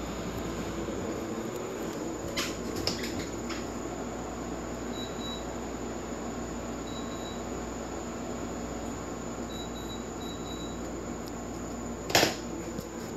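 LG window air conditioner running steadily, with a few short faint beeps as it takes commands from its remote. A few light clicks come in the first seconds and a sharp knock near the end.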